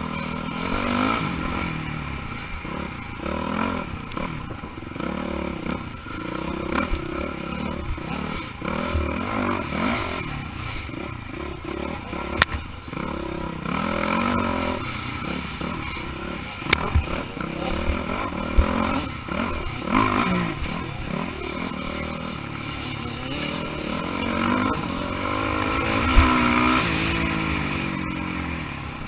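Dirt bike engine under hard riding, its revs climbing and dropping over and over as the throttle is worked, with several sharp knocks and clatter from the bike over rough ground.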